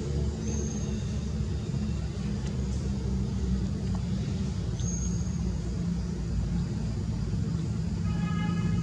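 Steady low motor rumble with a hum, with two brief high chirps, one about half a second in and one about five seconds in, and a short high pitched call near the end.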